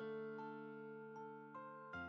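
Soft background music on a keyboard: sustained chords with single higher notes changing about every half second, and a new chord near the end.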